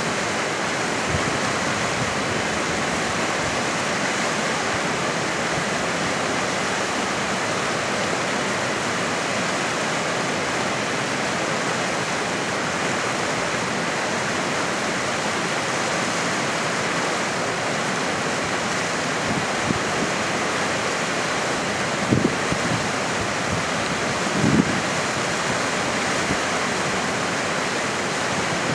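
Mountain river rushing through a rocky gorge: a steady, even rush of water, with two brief louder sounds near the end.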